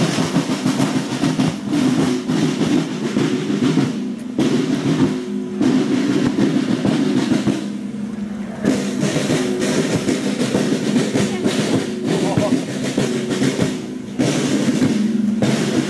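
Marching drums beating with snare rolls, over steady held musical notes. The sound changes abruptly a few times where the recording is cut.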